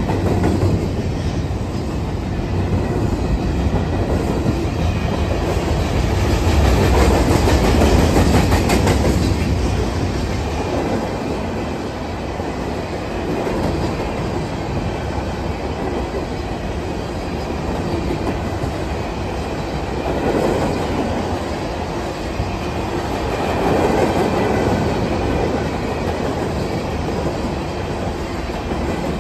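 Freight train hopper cars rolling past close by: a steady rumble of steel wheels on rail. It swells about seven to nine seconds in, with a quick run of clicks, and swells again near the end.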